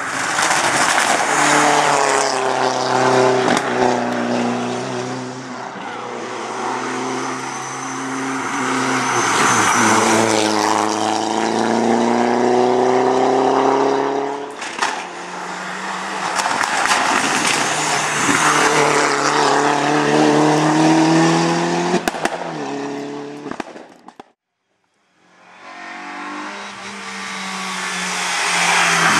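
Hillclimb racing cars accelerating hard uphill one after another, each engine's pitch climbing through a gear and dropping at each upshift. A SEAT León is driving hard at the start. The sound cuts out for about a second roughly 24 seconds in, then a Renault Clio's engine comes up as it approaches.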